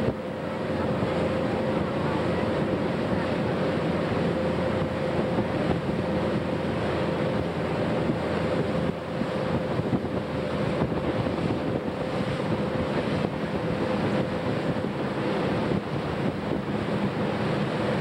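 Motorboat underway at steady towing speed: a steady engine drone under the rush of the churning wake, with wind buffeting the microphone.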